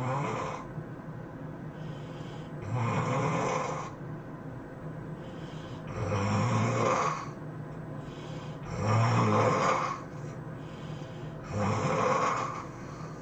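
A sleeping person snoring loudly. There is a rasping snore about every three seconds, each lasting about a second, with quieter gaps in between.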